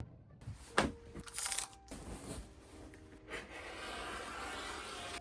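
Hand work on denim and fabric: a sharp click, then crisp rustling and crunching of cloth, followed by a steady hiss over the last two seconds.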